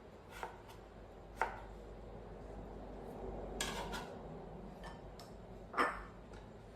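Scattered clinks and knocks of dishes and utensils being handled, about half a dozen in all, the loudest about a second and a half in and near the end, over a faint low hum.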